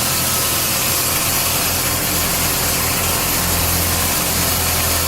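Woodcutting saw machinery running steadily, a loud continuous low hum with an even hiss over it.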